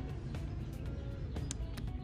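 Bass-heavy music played through a small portable speaker, with a strong low end and sharp percussion hits.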